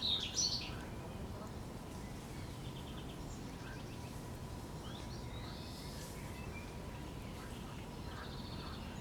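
A songbird singing in short chattering phrases: loudest at the very start, again about five seconds in and near the end. A steady low background rumble runs underneath.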